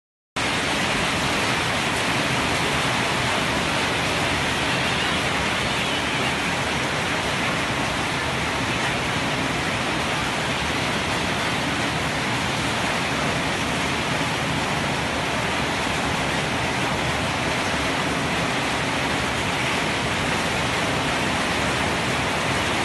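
A loud, steady, even hiss that cuts in suddenly just after the start and holds the same level throughout, with no separate drops, knocks or voices in it.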